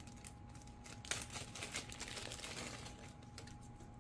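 Faint handling noises of an RC plane's flight battery being plugged into its connector: scattered small clicks and light rustling, with one sharper click about a second in.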